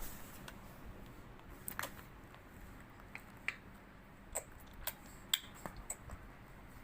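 A baby clicking his tongue, a string of sharp, irregular clicks a second or so apart.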